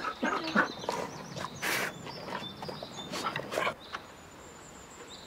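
Dogs at a wire enclosure fence giving a series of short whines and yelps, bunched in the first four seconds.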